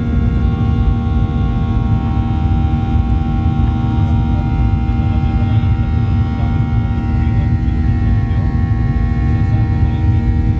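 Boeing 737 jet engines running steadily, heard from inside the passenger cabin: a constant deep rumble with several steady whining tones over it.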